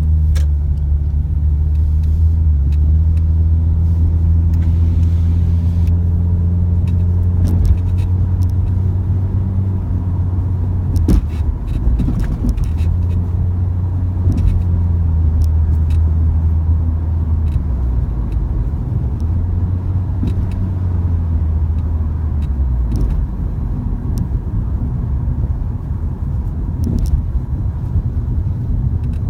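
Car engine running steadily: a low, even hum whose pitch shifts a little, with a few sharp clicks around the middle.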